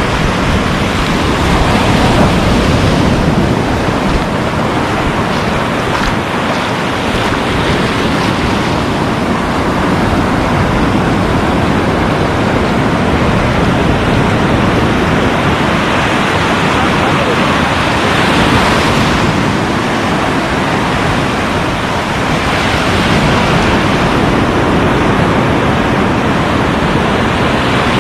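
Sea surf breaking on the shore, with wind on the microphone: a loud, steady rush that swells and eases every few seconds.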